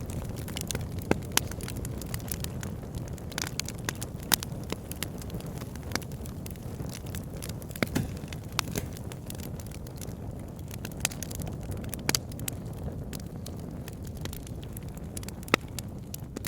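Wood fire burning in a fireplace: a steady low rumble of flames with irregular sharp crackles and pops scattered throughout.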